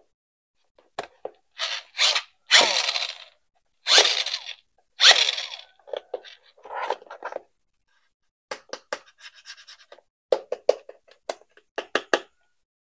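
Packaging and plastic toy parts being handled: several short rustling scrapes, then a quick run of small clicks and taps.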